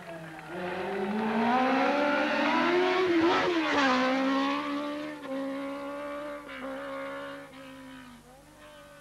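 Racing car engine rising in pitch as it accelerates toward the listener, then passing close by about three and a half seconds in with a sharp drop in pitch. It pulls away uphill, changing gear a few times, and fades.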